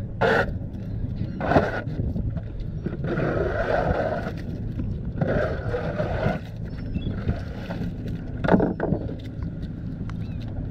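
A plastic dustpan scraping across a boat's wooden deck, scooping up a pile of loose shrimp. There are two longer scraping passes in the middle and a few sharp knocks as the pan hits the deck, over a steady low hum.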